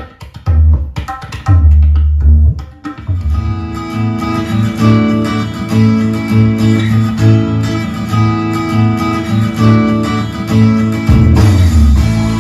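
Hindi film song music playing through a Sony HT-S350 2.1 soundbar and wireless subwoofer: heavy bass hits with short gaps for the first few seconds, then a steady instrumental passage with a regular beat.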